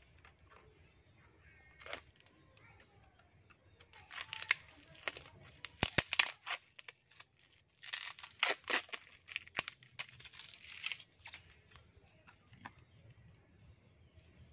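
Packing tape being picked at and torn off a small taped cardboard box, in irregular bursts of sharp crackling rips, most of them in the middle of the stretch.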